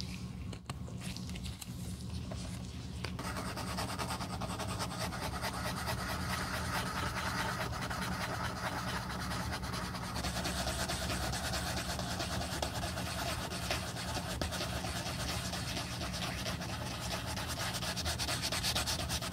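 Soft sandpaper rubbing over the scuffed white leather toe of a Common Projects Achilles sneaker in quick, short strokes, smoothing the scuff: a dense scratchy hiss that starts about three seconds in and grows louder about halfway through.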